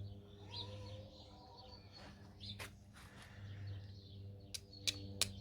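Birds chirping in the background over a steady low hum; near the end, three quick sharp clicks of a small steel striker struck against a flint shard to throw sparks, with one earlier click about midway.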